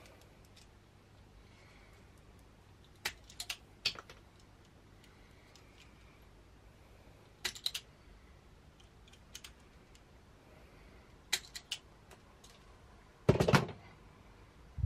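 Hand wire stripper clicking and snipping as cable insulation is stripped: small clusters of sharp clicks spread through, with a louder clack near the end.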